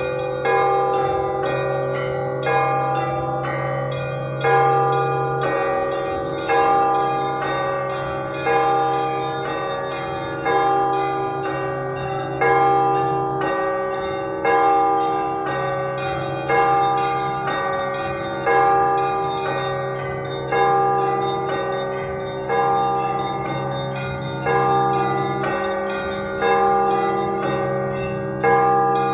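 Russian Orthodox church bells rung in a zvon: a heavy bell struck about every two seconds under a continuous quick pattern of smaller bells.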